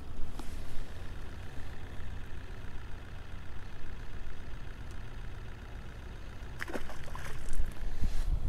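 Steady low rumble of wind buffeting the microphone on open water, with a brief burst of clicking and rattling about seven seconds in.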